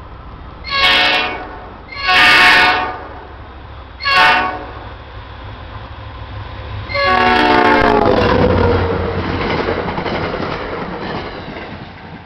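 NJ Transit GP40PH-2 diesel locomotive's air horn sounding the grade-crossing signal, long, long, short, long. The last long blast drops in pitch as the locomotive passes. It runs into the rush and wheel clatter of the passing train, which fades near the end.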